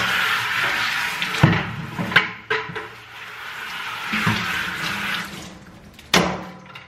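Hose spray nozzle hissing into a plastic 5-gallon bucket in a stainless steel mop sink, pausing briefly about two and a half seconds in, then stopping about five seconds in. Hollow knocks from the bucket bumping the sink come through, the loudest about six seconds in as it is tipped out.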